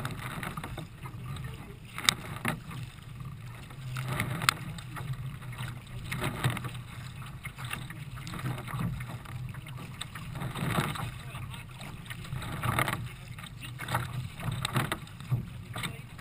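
Water rushing and splashing along the bow of a Nelo racing kayak moving at speed through choppy water, swelling in surges about every two seconds, with wind rumble on the microphone and a few sharp ticks of spray.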